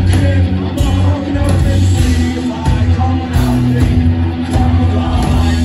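Live rock band playing loud through a venue PA, heard from within the crowd, with a heavy, booming low end. A sustained note holds from about two seconds in.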